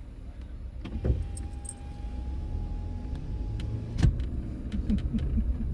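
Low rumble of a Toyota RAV4 heard from inside the car, with a sharp knock about a second in and another about four seconds in, light clicks, and a faint steady tone lasting about two seconds.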